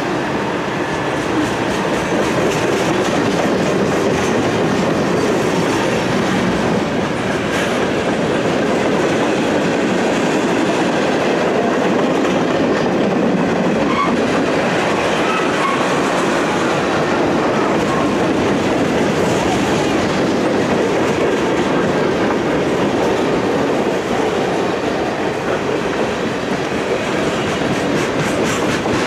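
Cars of a long, heavy Canadian National freight train rolling past: a loud, steady rumble of steel wheels on the rails with clickety-clack over the joints.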